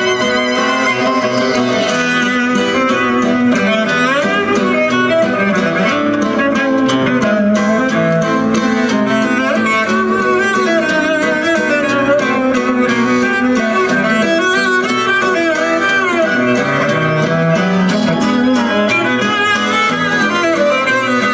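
Music with violin and a steady beat, played loud through a car audio system.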